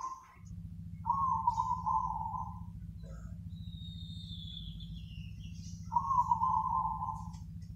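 Zebra dove cooing: two phrases of rapid rolling notes, one about a second in and one about six seconds in. Between them a thin, high, falling whistle is heard, and a steady low hum lies under it all.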